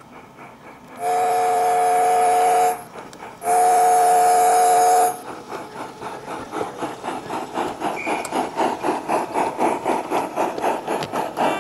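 Miniature steam locomotive's chime whistle giving two long blasts, each a chord of several notes lasting about a second and a half. Then comes the engine's steady exhaust beat, about four beats a second, growing a little louder as the locomotive and coach pass close by.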